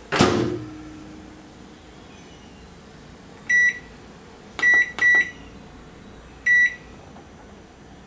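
Microwave oven door shutting with a sharp clunk just after the start. Then four short, clear beeps from the control panel as the dial is turned and buttons pressed to set a one-minute cook time.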